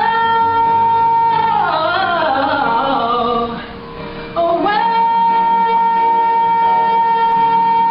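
Pop music in which one lead line holds a long high note, breaks into a quick wavering run, drops away briefly just past the middle, then swoops up into another long held note.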